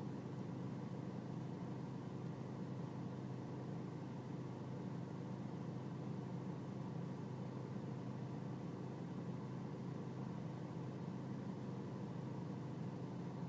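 BMW E46 320Cd's four-cylinder diesel engine idling with a steady low hum, the idle the owner describes as rough.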